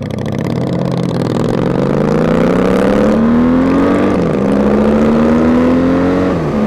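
Honda Magna motorcycle's V4 engine accelerating through the gears. Its pitch climbs steadily, drops at a gear change about four seconds in, climbs again, and drops at another shift near the end.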